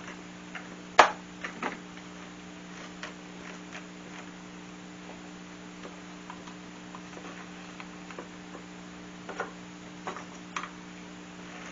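Clamps and wood being handled and adjusted on a glue-up: scattered sharp clicks and knocks, the loudest about a second in and a small cluster near the end, over a steady electrical hum.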